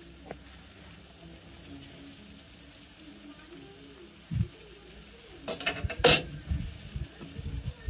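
Water simmering in a wok around a block of instant noodles, a faint steady hiss. A low thump comes about four seconds in, two short sharp clatters come around six seconds, and a few irregular low knocks follow.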